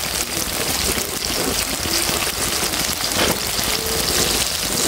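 Battered banana pieces deep-frying in hot oil in a wok: a dense, steady sizzle and crackle.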